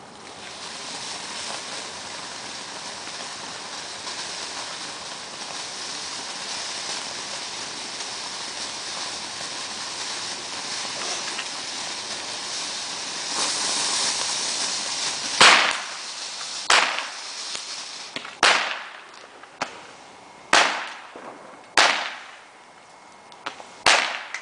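Ground fountain firework hissing steadily as it sprays sparks, growing louder shortly before the spray ends. Then about six sharp bangs follow, a second or two apart.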